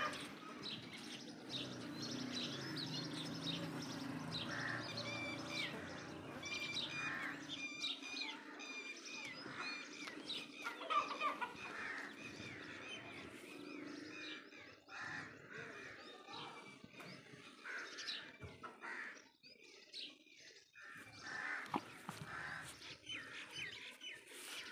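Small birds chirping over and over, with chickens clucking now and then. A low steady hum sits under them for the first half and fades out.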